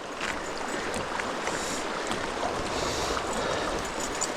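River water rushing and splashing around a kayak in rapids, with small knocks and splashes against the hull.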